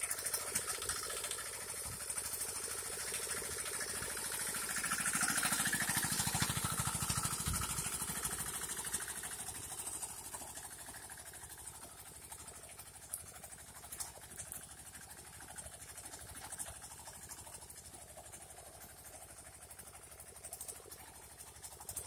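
Mini tractor's engine running steadily with a fast even chugging as it pulls a plough through scrub, loudest a few seconds in and then fainter, with a few short knocks later on.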